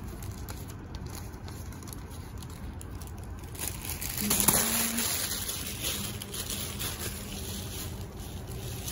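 Plastic shopping bag and paper receipt rustling and crinkling as they are handled, louder for a couple of seconds about halfway through with one sharp crackle.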